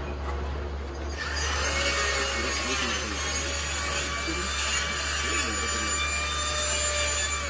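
A handheld electric power tool starts about a second in and runs at a steady speed, giving an even motor whine over a rough scraping hiss as it sands a plastic headlight lens.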